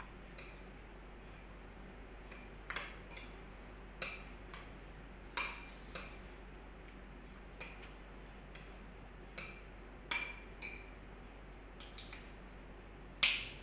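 Metal spoon clinking against a cut-glass bowl as curd is stirred, in scattered irregular clinks, with the loudest click near the end.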